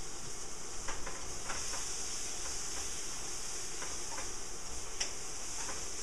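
Bell peppers sizzling steadily in a frying pan, with a few light, irregular clicks of a utensil against the pan as they are stirred.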